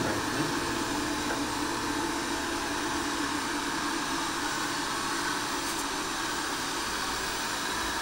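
Xiaomi Mi Robot Vacuum Mop Pro running on standard suction, its fan and brushes giving a steady, even whirring noise as it moves across the floor.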